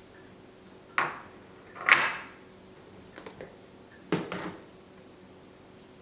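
Espresso gear and crockery being handled: three sharp clinks and knocks of metal and china set down or tapped together, the second ringing briefly, with a few light ticks between.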